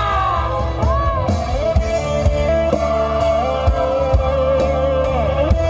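Loud dance music with heavy bass, drum hits and a lead melody that slides up and down in pitch, played at high volume through a large truck-mounted sound system during a sound check.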